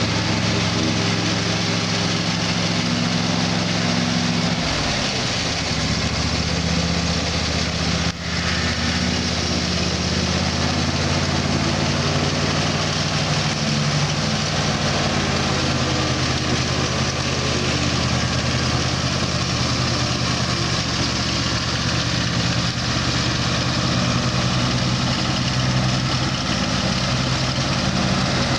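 Riding lawn mower's engine running steadily while mowing, its pitch shifting about five seconds in.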